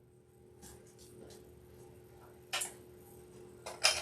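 Small objects being moved and set down on a work table: a few faint clicks and taps, then two short scrapes, one about two and a half seconds in and one near the end.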